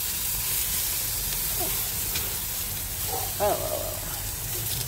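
Whole striped bass and eggplants sizzling on a gas grill, a steady hiss. A brief high, wavering voice-like call comes about three and a half seconds in.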